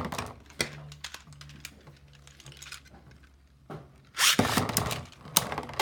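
Two Beyblade spinning tops, a Tornado Leone and a burst Beyblade, spinning in a plastic stadium with light clicks and a steady low hum. About four seconds in comes a loud clash, which knocks one top out, followed by a sharp click.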